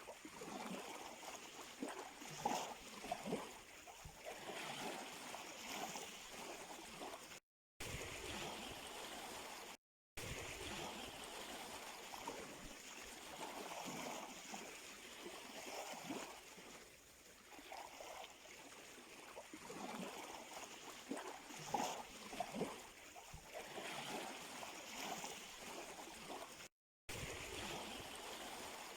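Small sea waves lapping and splashing at the shore in a steady wash of water, with many small surges. The sound cuts out completely for a moment three times.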